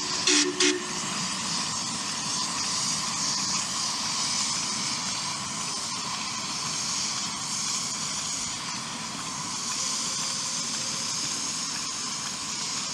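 A 7.5-inch gauge live steam locomotive, 4-8-4 no. 401, sounds a brief whistle toot right at the start, then lets off a steady hiss of steam.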